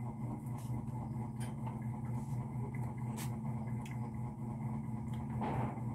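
A steady low mechanical hum, like a small motor running, with a few faint scattered clicks.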